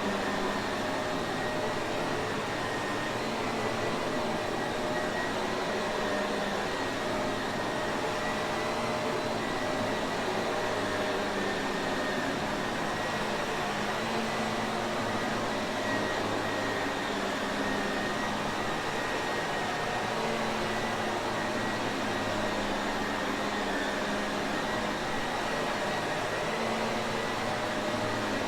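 Shark Navigator upright vacuum cleaner running steadily, a constant motor whine and rushing air with no change in speed.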